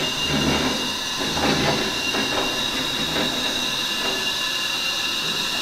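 Four-post car lift lowering a car: a steady hiss with a high, even whine over a low rumble, and a few faint knocks along the way.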